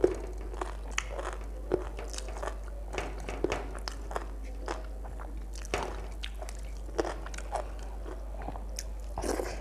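Close-miked eating by hand: fingers mixing rice and curry on a plate, and a mouth chewing with irregular wet smacks and clicks. A steady low hum runs underneath.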